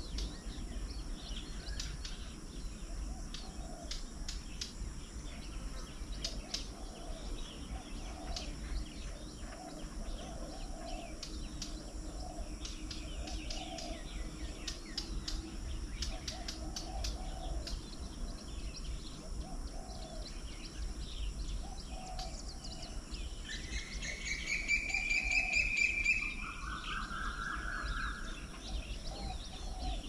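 Garden birds calling around a bird table, with many short high chirps throughout. About three-quarters of the way in comes a louder, longer call that rises slightly in pitch, then a lower call. A faint low sound pulses about once a second over a steady low background rumble.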